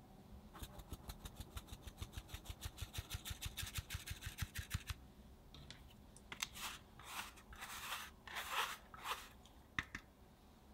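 Fine-mesh metal sieve sifting flour: a fast run of light taps and rattles, about eight a second, for some four seconds, then several longer swishing shakes and one sharp click near the end.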